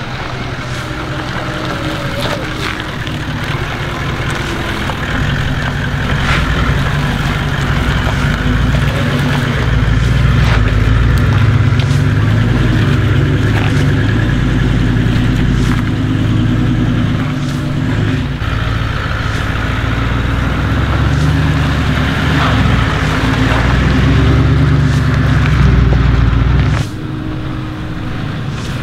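Toyota LandCruiser Troopcarrier's engine running at a slow crawl as it drives over rock and dirt on a four-wheel-drive track, with occasional knocks from the vehicle working over the bumps. The sound is quieter for the last couple of seconds.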